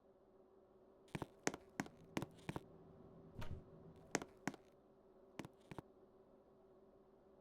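Ceiling fan running with a faint steady hum, with about a dozen light, irregular clicks and taps in the first six seconds.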